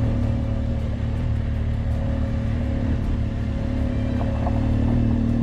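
BMW adventure motorcycle's engine running steadily while riding at an even speed.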